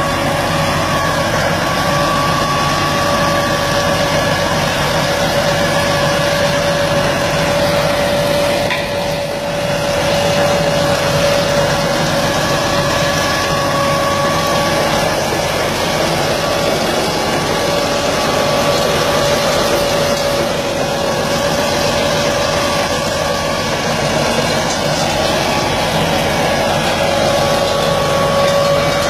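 An engine-driven machine running steadily, with a constant whining tone over the engine noise; the sound dips briefly about nine seconds in.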